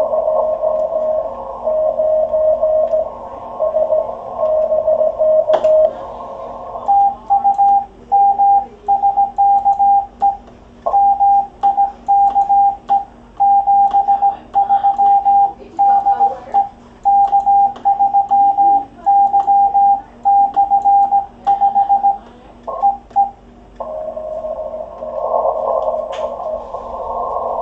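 Morse code on a shortwave transceiver. For the first seven seconds a received CW signal keys at a lower pitch inside the receiver's hiss. Then the operator's own hand-keyed sending plays as a clean, higher-pitched sidetone for about sixteen seconds, the hiss muted while he transmits. Near the end the receiver hiss comes back.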